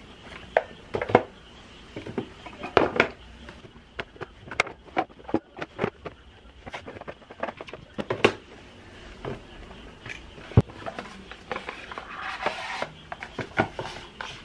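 Small objects being handled on a shelf: wallets, boxes and papers picked up and set down, with scattered knocks and taps as things meet the shelf and a plastic mesh basket. A short stretch of rustling about twelve seconds in.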